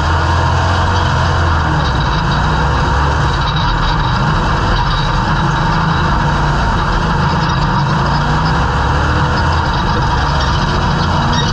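Dirt-track stock car's engine running hard, heard from inside the cockpit, its revs rising and falling through the laps.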